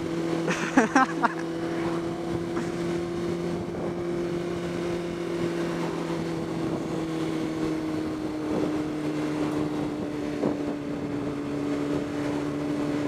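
Honda CBR600RR's inline-four engine running at a steady cruising speed, with wind noise. The engine note eases slightly lower about two-thirds of the way through. A brief louder burst about a second in is the loudest moment.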